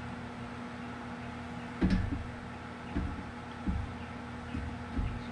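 A few dull knocks and bumps as boiled barracuda skull bones are handled with tongs on a baking tray, the loudest about two seconds in, over a steady low hum.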